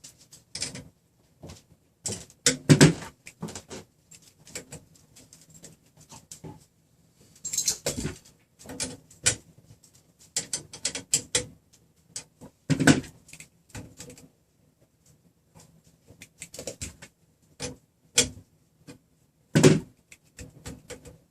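Irregular clicks, clinks and knocks of a wrench and metal hardware as the printer frame's nuts and rod clamps are tightened, with a few louder knocks spread through.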